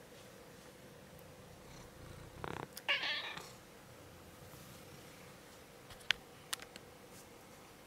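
A cat meows once, briefly, about three seconds in. Two or three sharp clicks follow a few seconds later.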